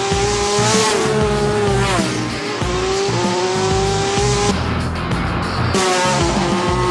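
Honda RC213V MotoGP bike's V4 engine running hard at high revs. Its pitch dips and steps up as the rider shifts, and it drops away for about a second past the middle before coming back, with background music underneath.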